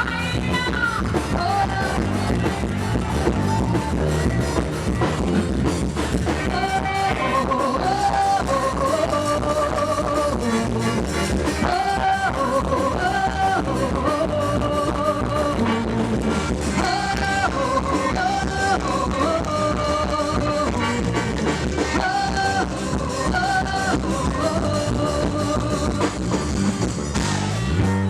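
Music with a steady beat and a repeating melody in short phrases.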